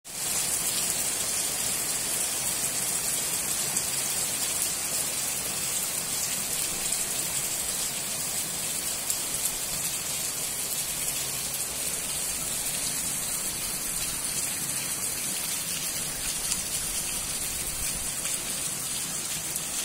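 Steady rain falling on wet pavement, an even hiss that neither builds nor fades.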